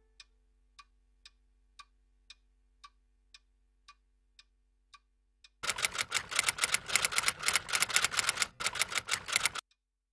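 A clock ticking about twice a second over a faint low hum. A little past halfway a fast clatter of typewriter keys takes over for about four seconds, then stops abruptly.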